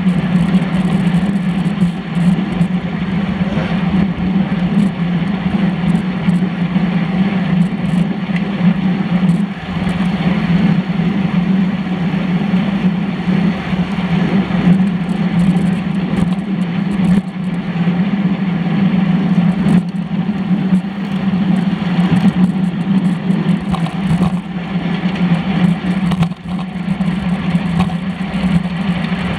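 Steady rush of wind and road vibration picked up by a camera mounted on the handlebars of a road bike being ridden, with a constant low hum under it.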